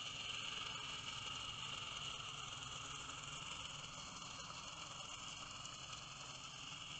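Steady high-pitched hiss with a fine crackle, the background noise picked up by a camera underwater.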